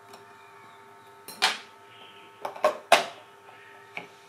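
Sharp clicks and knocks from the plastic parts of a homemade PVC coin box being fitted by hand: one about a second and a half in, three in quick succession around three seconds, and a faint tick near the end.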